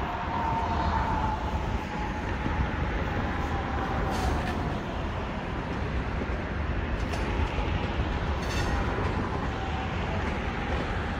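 Metra Electric bilevel electric multiple-unit commuter train running along the tracks: a steady rumble of wheels and cars with a faint whine that dips slightly in pitch, and a few brief clicks.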